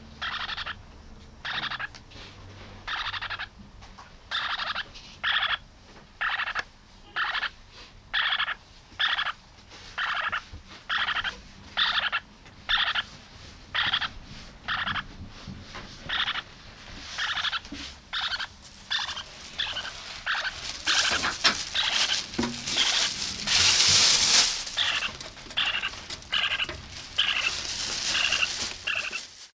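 Lineolated parakeet chick, about 15 days old, giving short calls over and over, about one and a half a second. Around two-thirds of the way in, a loud rustling noise rises over the calls for several seconds and then fades.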